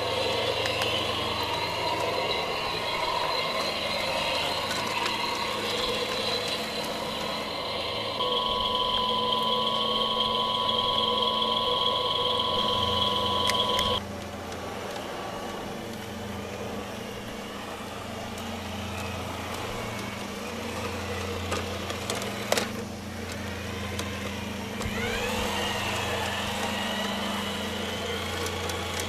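Steady low drone of an engine running nearby. A steady two-pitch tone sounds for about six seconds in the first half, there is one sharp click partway through, and rising glides come near the end.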